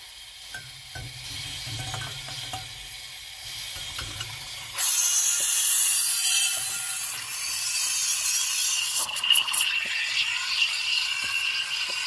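Steam wand of a La Sorrentina atomic-style stovetop espresso maker frothing milk in a jug: a low rumble with light clicks, then about five seconds in the steam valve opens and a loud steam hiss starts and keeps on. A steady squealing tone with wavering pitch joins the hiss near the end as the milk froths.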